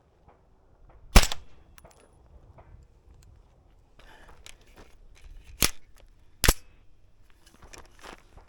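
Three suppressed shots from a 7.5-inch 300 Blackout fitted with a B&T Vers 36 Ti titanium suppressor: one about a second in, then two less than a second apart over halfway through. Fainter clicks and taps come in between.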